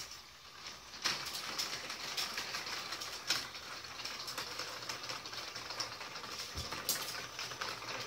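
Remote-control LEGO train running on plastic track: a steady, dense clicking rattle of its wheels and drive over the track, starting about a second in.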